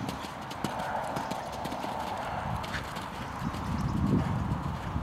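Hoofbeats of a horse cantering on a sand arena surface.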